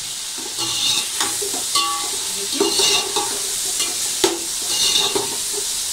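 Sliced chicken frying in hot oil with a steady sizzle, while a metal spatula is stirred through it, scraping and clinking against the metal pot several times, the sharpest clink about four seconds in.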